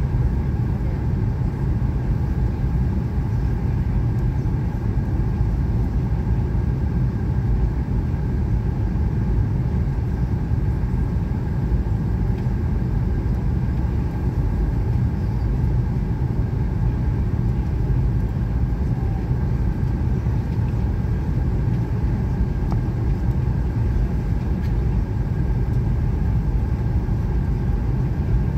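Steady cabin noise inside a Boeing jet airliner on descent: a deep, even roar of engines and rushing air, with a faint steady high whine above it.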